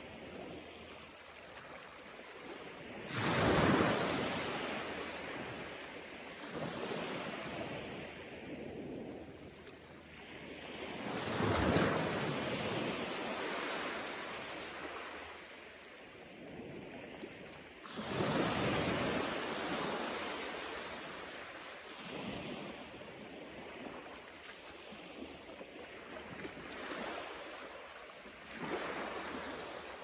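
Small waves breaking and washing up a flat sandy beach over a steady hiss of surf, with a louder wash every several seconds that swells and fades.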